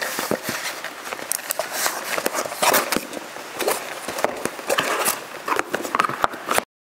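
Cardboard packaging being handled: a box's flaps and cardboard insert rustle and scrape as they are folded shut, with scattered light knocks and clicks. It stops abruptly near the end.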